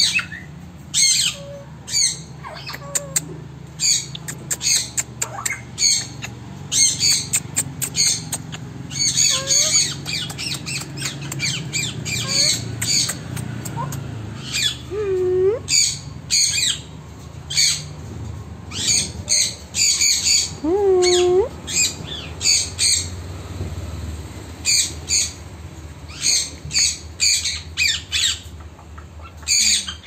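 Parrots squawking: a long run of short, sharp, high-pitched calls, often several in quick succession, with two lower calls that slide up and down in pitch in the middle.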